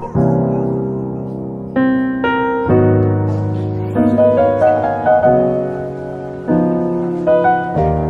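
Background piano music: chords struck every second or so, each left to ring and die away.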